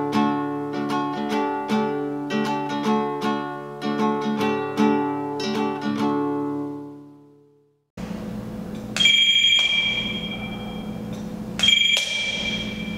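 Plucked acoustic guitar music fades out about seven seconds in. After a short silence, an electronic doorbell rings twice, about three seconds apart.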